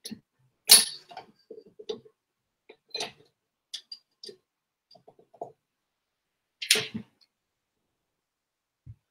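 Several short, sharp clanks and knocks of a metal mixing bowl and kitchen utensils being handled at a stand mixer. The two loudest come about a second in and near seven seconds, with lighter knocks between.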